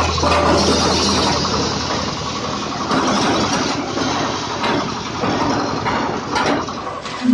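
Small diesel engine running a corn sheller under load as cobs are fed in, a steady machine noise with occasional sharp clicks.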